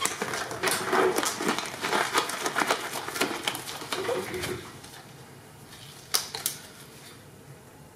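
Crackling and rustling of a nitrile exam glove being pulled onto a hand, dense for about the first four and a half seconds. It then goes quiet apart from two sharp clicks about six seconds in.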